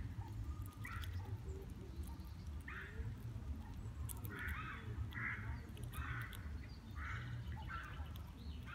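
A bird giving harsh calls over and over, at first spaced out and then about every second from midway, over a steady low rumble.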